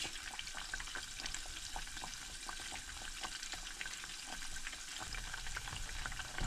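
Breaded catfish fillets frying in about half an inch of hot oil in a saucepan, a steady dense crackle of popping oil.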